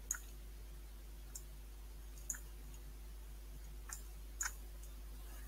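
Computer mouse clicks, about five sharp, separate clicks spaced irregularly, over a faint steady hum.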